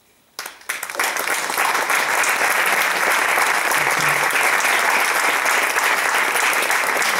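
Audience applauding: a few scattered claps about half a second in, then steady applause from about a second in.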